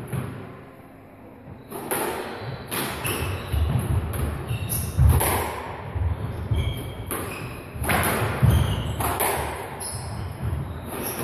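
Squash rally: the ball struck by rackets and hitting the court walls in a run of sharp thuds, roughly one a second, starting about two seconds in. Short squeaks of court shoes on the wooden floor come between the hits.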